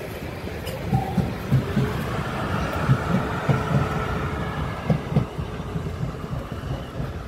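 Siemens Desiro electric multiple unit running slowly past, with a faint motor whine and irregular low thuds from the wheels going over rail joints and pointwork.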